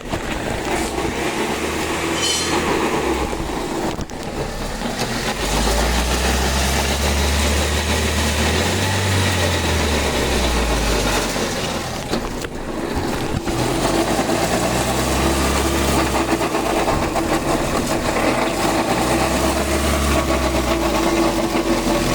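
Toyota RAV4 running with transmission noise: a steady mechanical hum with a constant tone that grows stronger about two-thirds of the way in, over a low rumble that swells and fades. The owner puts the noise down to a failed transmission bearing and a burnt clutch.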